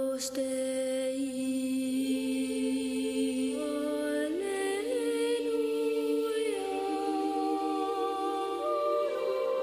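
Unaccompanied close-harmony vocals opening a song: several voices hold long chords that shift note by note, with short glides between pitches and no bass or drums.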